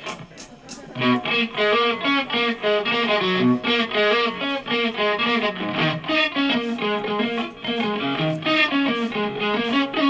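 Electric guitar playing a quick picked, arpeggiated intro line through effects, coming in about a second in. Just before it, a few sharp evenly spaced clicks.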